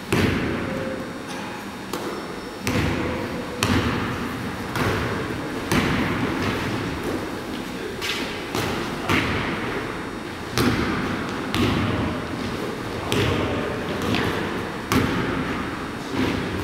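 A basketball bouncing on a hardwood gym floor: irregular thuds about once a second, each echoing in the large hall.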